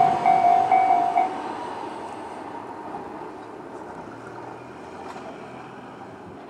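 Railway level crossing's electronic warning bell ringing in quick repeated dings, about three a second, cutting off about a second in. Under it the running noise of a Tobu 200-series train fades away as it leaves the crossing.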